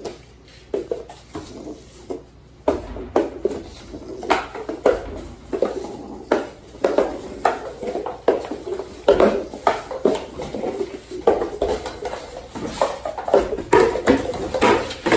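Drink cups being rapidly set down, knocked and shuffled on a countertop: a quick, irregular series of hollow knocks and taps, several a second.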